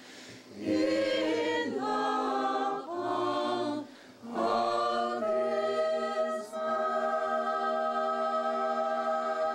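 Small a cappella choir singing in harmony: two short phrases, then a long held closing chord.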